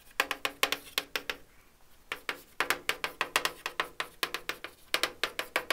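Chalk writing on a blackboard: a quick run of sharp taps, each ringing briefly, with a pause of about a second near the middle.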